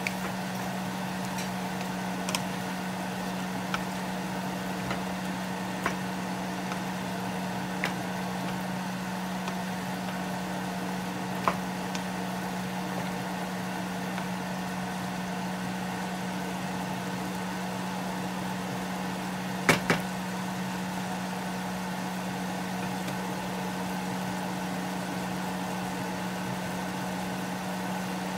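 A steady low hum, with a wooden spatula knocking now and then against a nonstick pan as vegetables and pineapple are stirred. The loudest is a pair of quick knocks about twenty seconds in.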